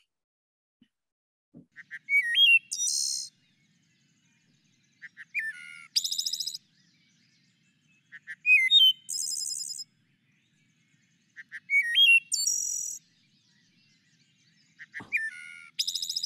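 Wood thrush singing: five song phrases about three seconds apart. Each is a few soft short notes, a clear flute-like ee-oh-lay phrase, then a high trill.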